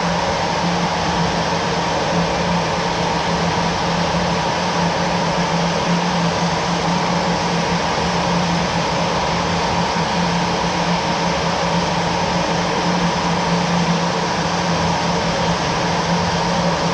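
Jet aircraft engine noise as a steady drone: an even hiss with a constant low hum and a higher whine, unchanging throughout.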